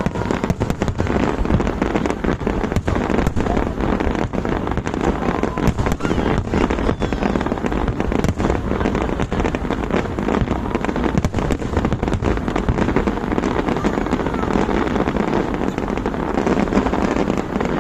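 Fireworks going off in rapid, unbroken succession: dense bangs and crackling bursts throughout.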